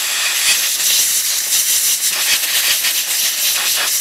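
Compressed-air blow gun hissing steadily as it blasts debris away from around the distributor base of a marine engine.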